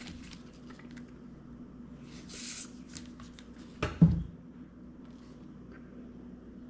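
Knife cutting a tangelo, with a soft hiss of the slice about two and a half seconds in and a sharp knock of the blade on the board just before four seconds, over a low steady hum.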